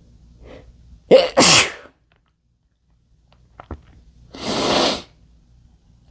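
A man sneezes once, loudly: a quick intake of breath, then a sharp voiced burst that falls in pitch. About three seconds later comes a shorter breathy rush of air.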